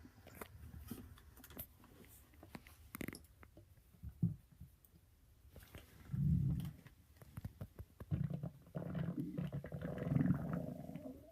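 A person's stomach growling: a short low gurgle about six seconds in, then a longer rumbling growl near the end. Faint clicks and rustles in between.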